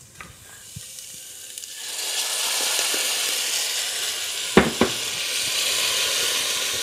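Blended tomato salsa sizzling as it is strained into a hot pan of sautéed onion and poblano strips. The steady sizzle starts about two seconds in, with two quick taps about halfway through.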